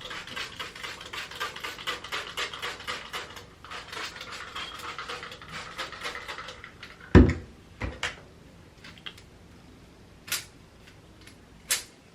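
Quick, even rustling from the wet curls of a water-wave wig being sprayed and worked. About seven seconds in comes a loud thump, then a smaller knock and a few light clicks as things are handled.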